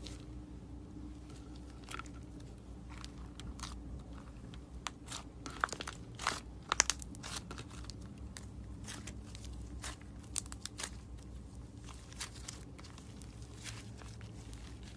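Slime being squeezed and pressed by hand, giving irregular crunchy crackles and pops, thickest about five to seven seconds in.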